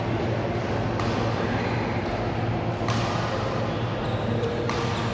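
Badminton rackets striking a shuttlecock: three sharp cracks, the last two loudest, over a steady background hum.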